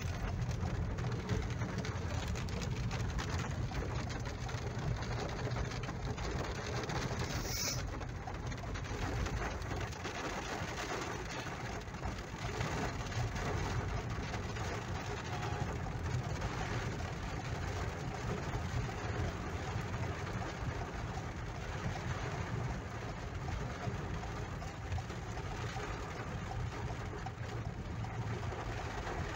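Steady rumble and rush of a car driving on a wet, hail-covered road, heard from inside the cabin, with rain and hail hitting the windshield and roof.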